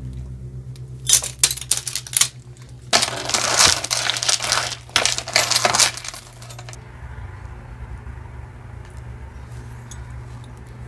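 Metal costume jewelry clicking and clattering as pieces are handled: a few sharp clicks about a second in, then a few seconds of dense rattling and crinkling that stops near seven seconds in. A low steady hum lies under it.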